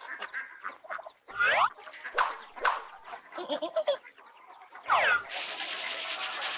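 Domestic fowl calling: short clucking notes and two louder honking calls with a bending pitch, the second about five seconds in. A steady hiss then sets in.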